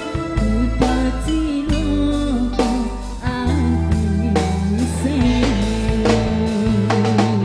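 A woman singing into a microphone over a live band: kendang hand drums, drum kit, electric guitars and keyboard, with a steady beat under a wavering sung melody.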